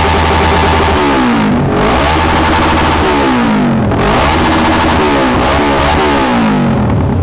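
Big motorcycle's exhaust revved repeatedly while standing for a sound check: the engine pitch climbs and drops back about five times over a steady idle.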